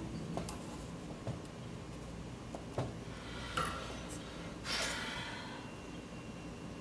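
Quiet hand-soldering at a workbench: a few faint taps and clicks over a low steady hum, with two short breath-like exhalations, about three and a half and five seconds in.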